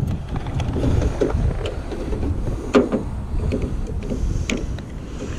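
Scattered light clicks and knocks of tools and metal parts being worked inside a pickup truck door during a door handle repair, the loudest a little under three seconds in, over a steady low rumble.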